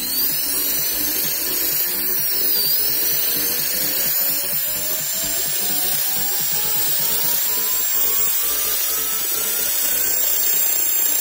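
Wire wheel brush spinning in a power drill and scrubbing rust off steel pliers: a steady, harsh scratching noise that starts abruptly and keeps on without a break.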